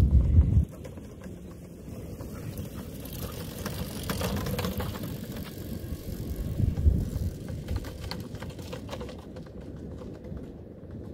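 A brief blast of wind on the microphone, cut off after about half a second, then an e-bike and its dog trailer rolling over a rough dirt track, rattling with scattered clicks.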